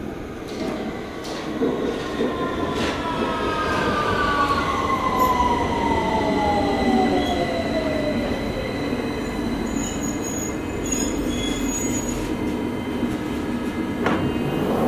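London Underground Victoria line train heard from inside the carriage, its running rumble building over the first few seconds, with a whine that glides down in pitch over several seconds. A steady high tone sits in the middle, and there is a sharp click near the end.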